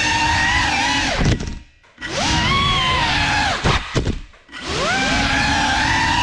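Geprc Cinelog 35 cinewhoop's brushless motors and propellers whining in flight, the pitch rising and falling with the throttle. Twice the motors cut almost to silence for about half a second and then spool back up, with two sharp knocks just before the second cut.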